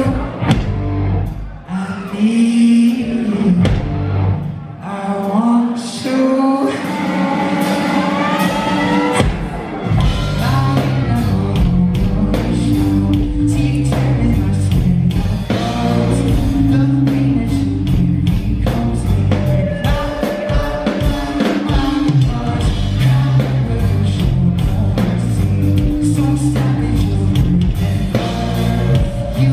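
Live rock band playing: lead vocals and electric guitar over bass and drums. A sparser, sung passage gives way to the full band with driving drums about ten seconds in.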